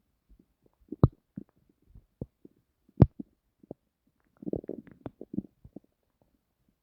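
Human stomach gurgling: scattered short pops, two sharp loud ones about one and three seconds in, then a longer bubbling stretch around four and a half to five and a half seconds.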